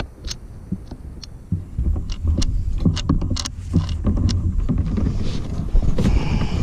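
Sharp clicks and knocks of fishing tackle and gear being handled aboard a small bass boat, over a low, uneven rumble that grows louder about a second and a half in.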